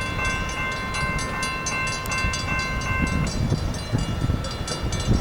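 Locomotive multi-chime air horn sounding one held chord, which cuts off about three seconds in. A rapid, even high ringing and the low rumble of a passing train run under it.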